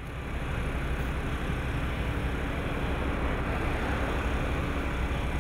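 Heavy diesel engine running steadily, a continuous low rumble with a haze of mechanical noise over it.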